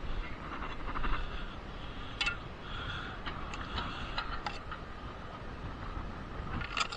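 A handful of short, sharp ticks and taps at irregular intervals over a steady background hiss, most of them bunched in the middle.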